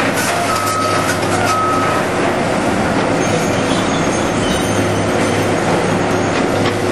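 Heavy diesel demolition machinery running steadily, with a backup alarm beeping two or three times in the first two seconds and scattered knocks and clatter.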